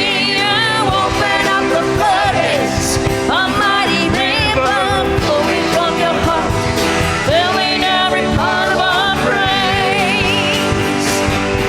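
Live worship band playing a sustained, steady-level passage of a contemporary worship song, with a singer's wordless vocal runs gliding and wavering with vibrato over held chords.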